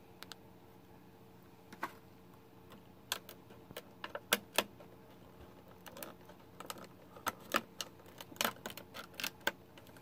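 Irregular sharp clicks and taps of hard plastic as a Bakugan toy is worked out through a hole too small for it.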